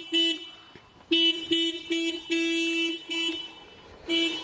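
Car alarm sounding through the car's horn: one short beep, then after a pause a run of five quick beeps, the fourth held a little longer, then a lull of about a second.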